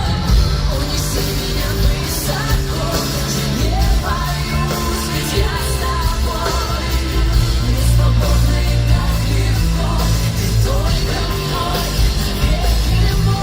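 Live pop song played loud through arena speakers: a woman singing over heavy bass and drums, as heard from the audience.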